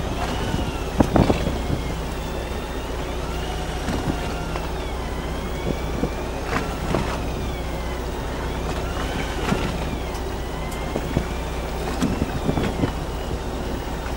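Fishing boat's engine running steadily at idle, a constant low hum. A faint wavering whine sits over it, and a few short knocks and clicks come from tackle being handled, the loudest about a second in and near the end.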